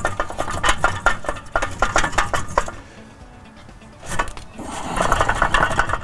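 Rapid metallic clattering and knocking as the old front wheel hub assembly is rocked back and forth by hand to work it out of the steering knuckle. It stops for about a second in the middle, then starts again.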